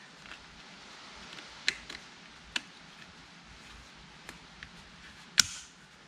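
Small plastic seat belt anchor cover on a C7 Corvette seat being worked back into place by hand: a few light clicks and taps, then a sharp snap near the end as it clips on.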